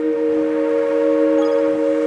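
Background music: a sustained chord of steady held notes, like an ambient drone, with a few faint high chime notes about one and a half seconds in.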